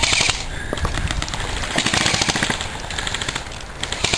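Airsoft guns firing on full auto in several short bursts, each a fast string of sharp clicks.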